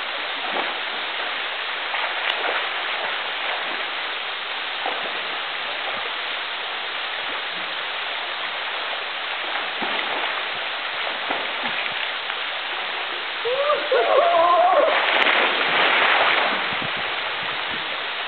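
Steady rush of a waterfall pouring down a sloping rock face into a pool. About fourteen seconds in, a person calls out and the water noise swells for a couple of seconds.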